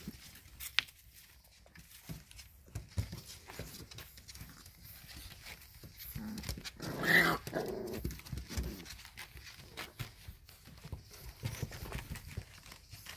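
A Shar-pei puppy gives one short bark or yelp about halfway through. Around it are scattered small clicks and knocks.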